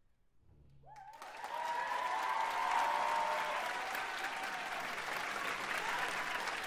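Audience applause and whooping cheers break out about a second in, after a moment of near silence, and continue steadily.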